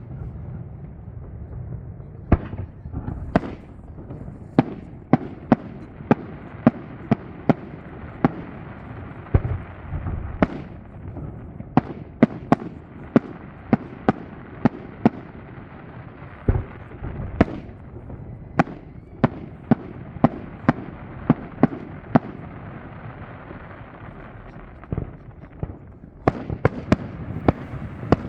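Fireworks display: shells bursting in sharp bangs, irregularly spaced, about one or two a second, over a steady low rumble. The bangs come thicker near the end.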